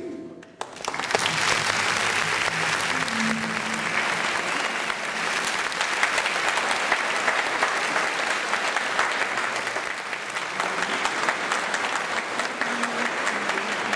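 Audience applauding in a hall. The clapping breaks out about half a second in, just as a piece of music ends, and keeps going steadily.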